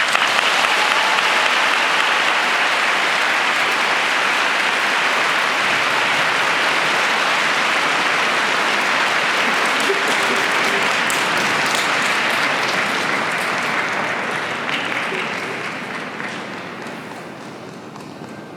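Audience applause. It starts suddenly as the skating music ends, holds steady, then dies away over the last few seconds.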